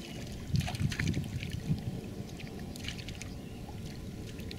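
Wet mud and water splashing and dripping from a person's hands while he stands in shallow flood water, with a cluster of splashes in the first two seconds and another around three seconds, over a steady low rumble.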